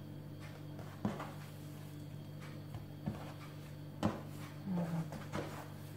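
A few soft knocks and thuds as hands twist and press braided dough strands onto a countertop, over a steady low hum.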